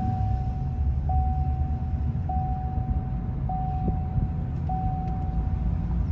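Car cabin on the move: low road and engine rumble, with a dashboard warning chime sounding five times, one steady tone of about a second each, repeating every second and a bit.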